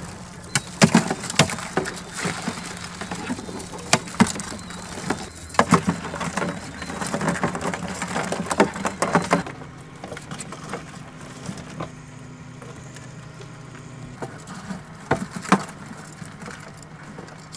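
Live blue crabs and their handling clattering against a plastic box: a dense run of sharp clicks and knocks that thins out after about nine seconds, with a few more knocks near the end. Under it runs the steady low hum of the crab boat's motor.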